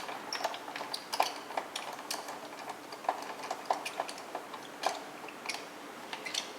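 A screwdriver backing a small screw out of the plastic side brush module of a Roomba 560: a run of irregular light clicks and scrapes, with the plastic housing being handled.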